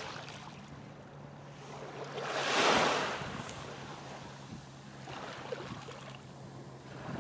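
Ocean waves washing in: a rush of surf that swells to its loudest about two and a half seconds in and then fades, with smaller swells near the end, over a faint steady low hum.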